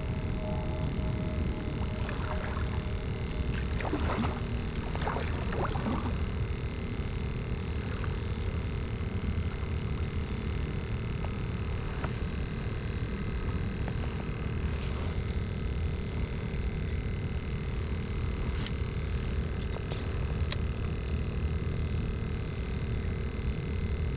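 Kayak's electric motor running with a steady hum over a low rumble of water and wind. A few brief chirps come around four to six seconds in.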